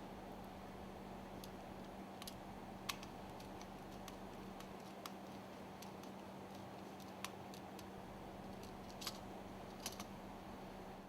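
Scattered faint clicks and ticks of small parts and hand tools being handled while wiring a terminal box, about ten in all, over a steady low hum.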